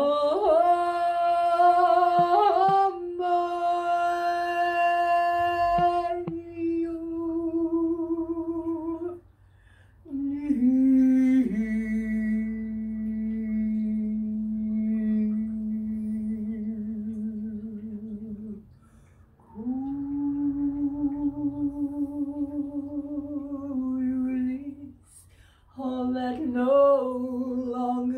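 A woman's voice singing long, wordless held notes with a slow vibrato. The notes come in four phrases broken by short pauses for breath, the second phrase lower than the first.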